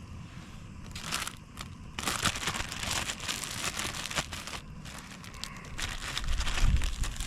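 Small floured perch fillets going into a hot pan on a propane camp stove and frying, a crackling sizzle that sets in about two seconds in. A low rumble joins near the end.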